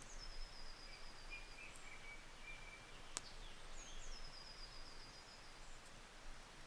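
Faint birdsong: a small songbird sings the same short high phrase twice, each a falling note running into a quick trill, with lower notes from another bird between them. A single sharp click about three seconds in.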